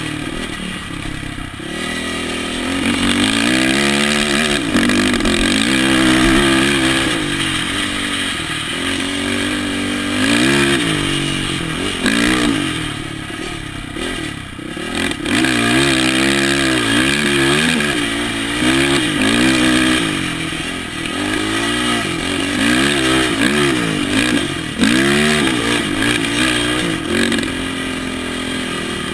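Quad (ATV) engine under way, climbing and dropping in pitch over and over as the throttle is worked, heard from the rider's helmet.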